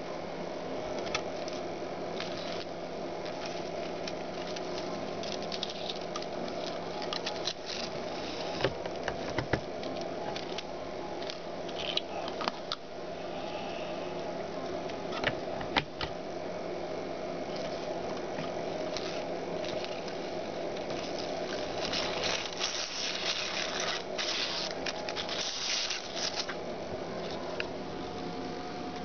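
Homemade VHS tape-cleaning machine running: its small motor hums steadily while the videotape winds from reel to reel over guide spindles, with a continuous fine crackle and a few sharp clicks. The crackle thickens for a few seconds near the end.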